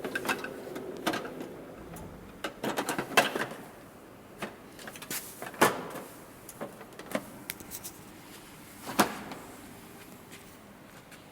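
Irregular clicks and knocks of a desiccant wheel dehumidifier's water tank being handled, with a cluster of quick clicks about three seconds in and single louder knocks near the middle and about nine seconds in.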